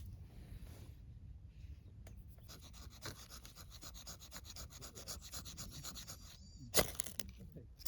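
Quick, even scraping or rubbing strokes, about ten a second, lasting a few seconds, followed by one sharp knock near the end.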